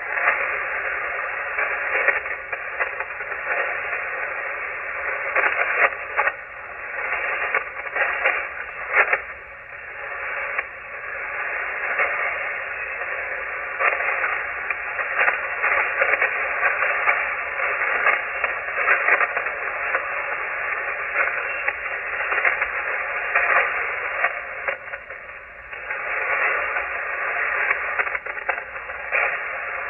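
Shortwave receiver on the 40-meter amateur band with no clear voice coming through: steady band noise cut off above the voice range, with frequent short static crackles.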